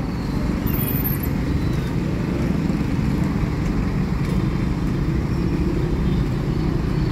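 City bus engines running with surrounding road traffic: a steady low rumble.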